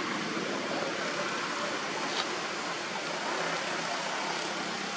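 Steady, even background noise with no distinct source, and one brief click about two seconds in.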